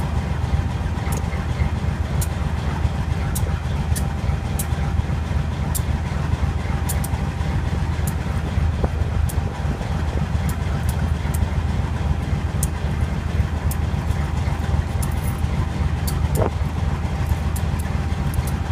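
General Electric U23B diesel-electric locomotive, its turbocharged V12 FDL diesel running steadily, a deep even rumble with a faint steady high whine over it and occasional sharp ticks.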